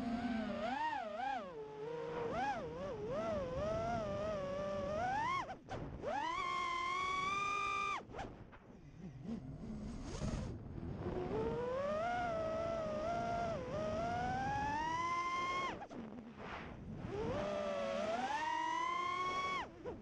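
Four EMAX RS2205 2300KV brushless motors with three-blade 5-inch props on an FPV racing quadcopter whining, the pitch wavering and sliding up and down with the throttle. It climbs into long high punches about a third of the way in, in the middle and near the end, and drops away briefly where the throttle is chopped.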